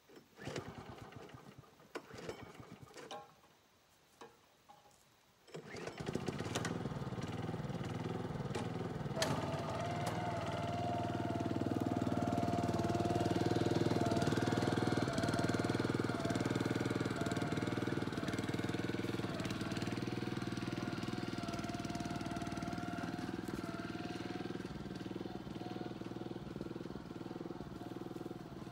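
A few scattered clicks and knocks, then about six seconds in a vehicle engine starts and keeps running steadily. A steady whine joins it about nine seconds in, and the sound swells and then eases slightly.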